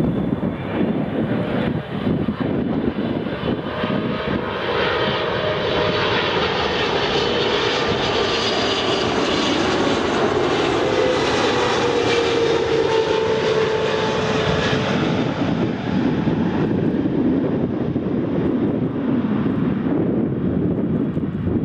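Boeing 777 twin-jet on final approach passing close overhead. The engine noise swells to a peak about halfway through, with a whine that falls in pitch as the aircraft passes, then settles to a lower rumble as it moves away.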